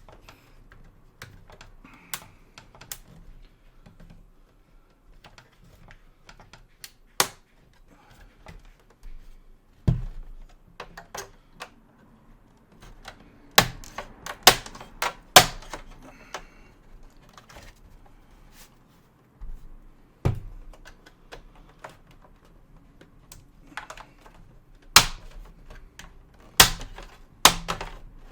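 Hand tools clicking and knocking against an Xbox One S's plastic case as it is pried open. Irregular sharp clicks, with a cluster of louder knocks about halfway through and several more near the end.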